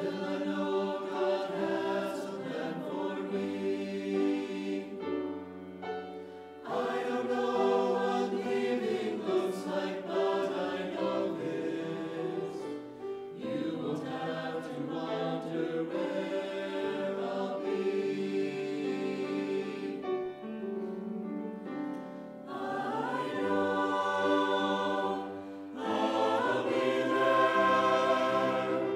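A choir singing a hymn in long sustained phrases, with brief breaks between phrases.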